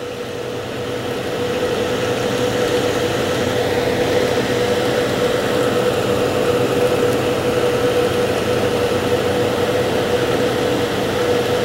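Steady machine hum with one constant tone over an even noise, swelling over the first couple of seconds and then holding level.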